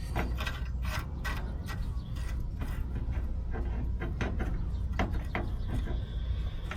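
Hand tools and steel parts clicking, knocking and scraping at irregular intervals while the sleeve is fitted to the upper ball joint of a Chevy K5 Blazer's front suspension, over a steady low hum.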